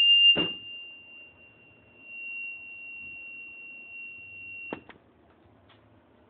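Circuit-bent telephone answering machine sounding one steady high-pitched beep tone for nearly five seconds, loud at first and then quieter. It starts and stops abruptly with clicks of its switches, with another click shortly after the start.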